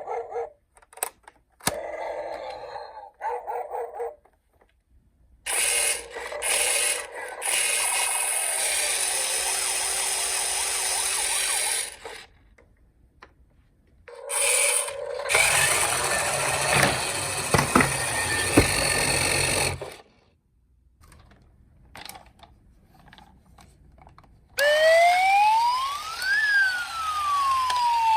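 Toy emergency-vehicle minicars' sound effects: several long stretches of loud rushing noise, then near the end a siren wailing up and down.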